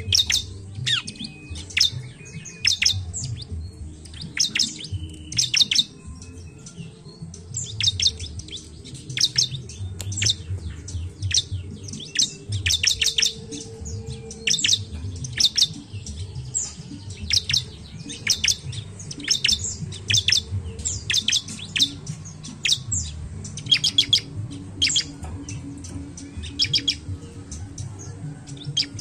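Bar-winged prinia (ciblek) calling in fast runs of sharp, high chirps, several a second, with short breaks between the runs. It is ciblek song of the kind played as a lure (pancingan) to get a quiet ciblek singing.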